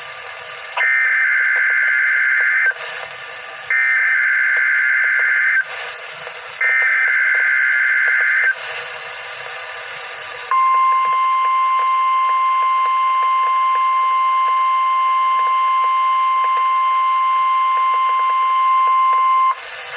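NOAA Weather Radio weekly test tones over a weather radio's speaker: three bursts of the warbling SAME digital header, each about two seconds, then the steady single-pitch warning alarm tone held about nine seconds. Radio hiss runs under and between them.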